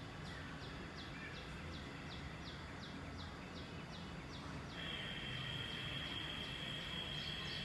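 Outdoor ambience with a bird calling in a steady series of short, falling high chirps, about three a second. About five seconds in, a steady high-pitched buzz joins it.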